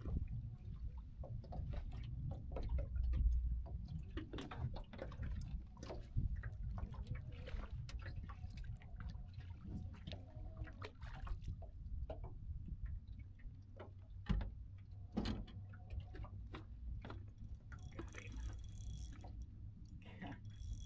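Small waves lapping against a boat's hull over a steady low rumble, with scattered light clicks and knocks of fishing tackle being handled.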